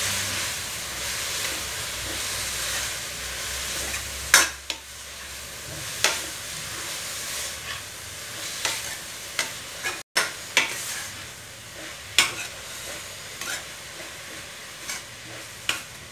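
Vegetables and gundruk frying in hot oil in a metal kadai, stirred with a metal ladle. The sizzle is strongest for the first few seconds, then settles lower. The ladle knocks and scrapes against the pan a dozen or so times.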